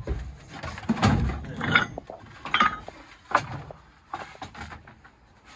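Wooden window frames knocking and scraping against one another as they are handled and shifted in a stack, with a few heavier thumps and clatters that thin out near the end.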